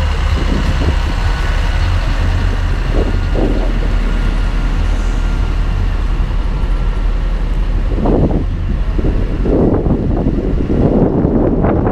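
Claas farm tractor's diesel engine running steadily as it drives past close by, towing a heavy float. In the last few seconds, gusts of wind buffet the microphone.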